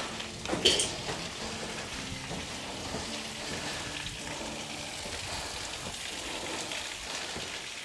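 Steady hiss of falling and splashing water from a waterfall inside the quarry, with a few sharp clicks like footsteps on loose slate in the first second.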